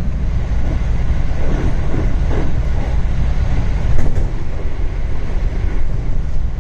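JR Central 313-series electric train running at speed, heard from inside the carriage: a steady rumble of wheels on rail, with one sharp clack about four seconds in.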